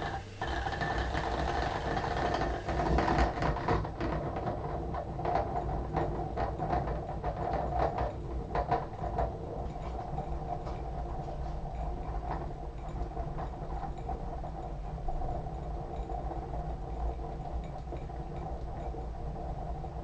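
Cona vacuum coffee maker over its spirit burner: the water has risen into the upper bowl and steam is bubbling up through it, giving a steady churning rumble with irregular crackles. The crackles are heaviest in the first several seconds.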